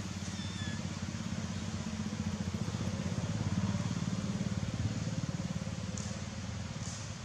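A motor vehicle's engine running, a low pulsing rumble that grows louder toward the middle and then fades.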